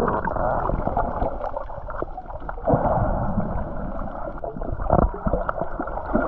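Muffled underwater splashing and bubbling as a swimmer plunges in and moves through the water, heard from below the surface, with a couple of louder surges about three and five seconds in.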